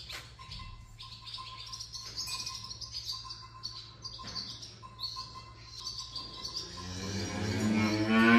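Barn swallows twittering, a run of quick high chirps. About seven seconds in a cow starts a long moo that rises in pitch and grows to the loudest sound.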